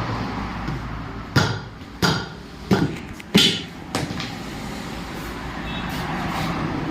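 Four sharp knocks, evenly spaced about two-thirds of a second apart, over a steady rumble of road traffic.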